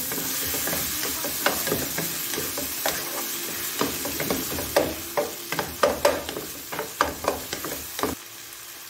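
Chopped tomatoes and fried onions sizzling in oil in a non-stick pan while a spatula stirs them, with repeated scrapes and taps on the pan. The sound drops suddenly quieter about eight seconds in.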